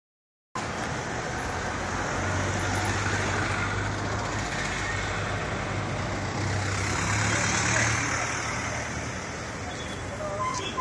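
Road traffic passing: engine hum and tyre noise from a vehicle going by for several seconds, then a vehicle horn starting to sound at the very end.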